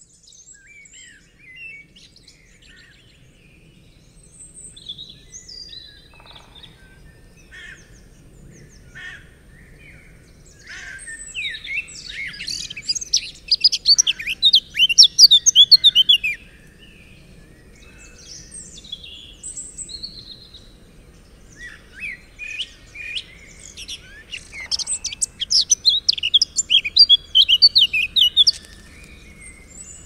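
Forest birds singing: scattered chirps and short phrases throughout, with two loud stretches of rapid, fast-repeating song, one a little over a third of the way in and another in the last third.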